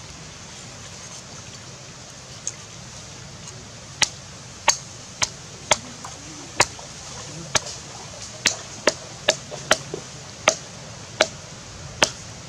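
Meat cleaver chopping through a fish on a round wooden chopping board: one light knock about two and a half seconds in, then from about four seconds in about a dozen sharp chops, unevenly spaced, one to two a second.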